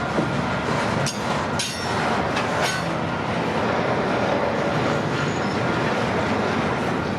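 Freight train cars rolling past on the track: a steady rumble of wheels on rail, with a few sharp clanks and squeals between about one and three seconds in.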